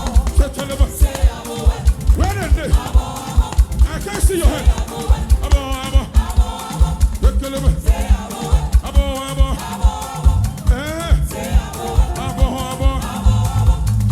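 Live gospel band music with a fast, steady drum beat, about four beats a second, and pitched lines gliding over it.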